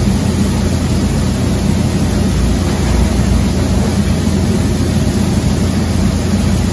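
Steady drone and hiss of a commercial kitchen exhaust hood fan running.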